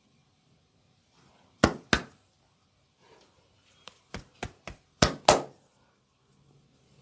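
Sharp hand slaps striking the body in a massage, in pairs: two loud slaps, a quicker run of lighter ones, then two loud slaps again.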